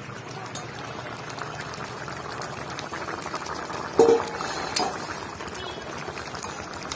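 Jackfruit and potato curry bubbling in its pot, a steady crackle of many small pops: the masala is simmering with a little water added to cook the jackfruit and potatoes through. A brief knock about four seconds in.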